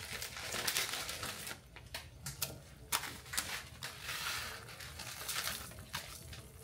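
Water boiling in a small saucepan, a steady bubbling hiss, with a plastic instant-noodle packet crinkling and crackling as dry noodles are tipped from it into the pot.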